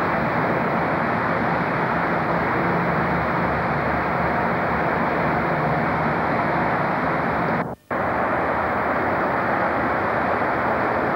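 Steady, noisy trackside rumble on a camcorder's sound track, with a faint low hum in the first part. It is broken by a sudden silent gap of a fraction of a second about eight seconds in, where the recording stops and restarts.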